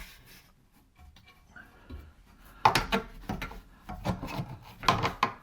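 Rubbing and scraping as grease is worked by hand onto a caravan corner steady's spindle and slide rail, in irregular strokes with the loudest clusters about three and five seconds in.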